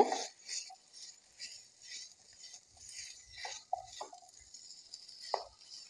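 Wooden spatula stirring and scraping a thick potato and pea masala around a nonstick frying pan: soft, faint scrapes about every half second, with a few light taps of the spatula against the pan.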